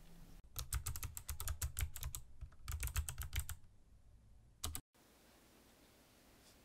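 Rapid typing on a computer keyboard: two quick runs of keystrokes with a short pause between them, then a couple of final keys. The sound cuts off abruptly just before the five-second mark, leaving faint room tone.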